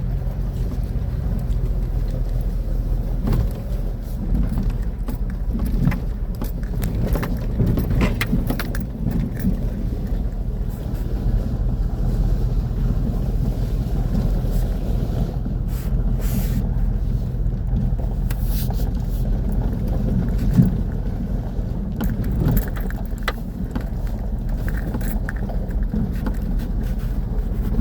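Full-size truck engine running steadily at low trail speed, a constant low hum, with scattered clicks, knocks and rattles from the truck crawling over rough ground.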